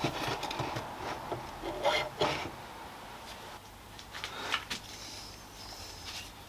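Irregular knocks, clicks and scrapes of tools and metal parts being handled at a workbench, with a louder clatter about two seconds in and another around four and a half seconds.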